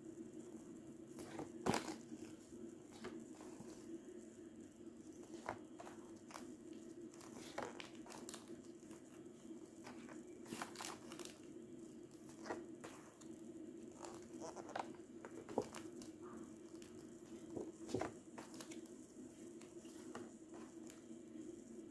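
Sheets of patterned scrapbook paper being leafed through and moved by hand: faint rustles and scattered soft taps of paper, the loudest about two seconds in and again near the end, over a steady background hum.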